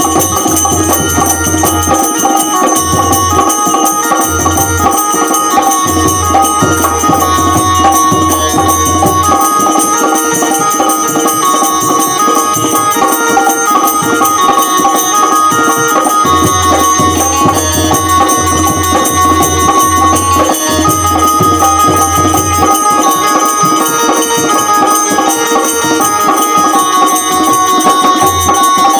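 Instrumental interlude of a Hindi devotional bhajan: a held, wavering melody line over a steady rhythm of drums and jingling percussion.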